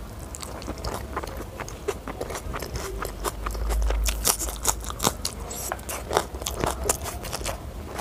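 Close-miked chewing of a mouthful of fried rice with wet mouth noises. From about halfway through come crisp, sharp crunches as a raw green chili is bitten and chewed.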